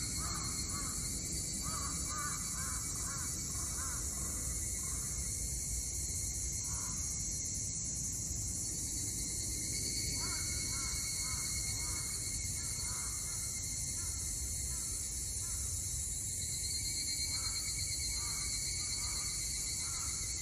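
A crow cawing in runs of short repeated calls, three runs in all, over a steady high-pitched insect drone.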